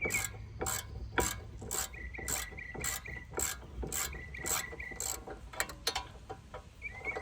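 Hand ratchet clicking in short strokes, about two clicks a second, as it backs out the bottom bolt of a rear brake caliper bracket.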